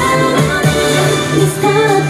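Pop dance music playing loud, with a sung melody over a steady bass line.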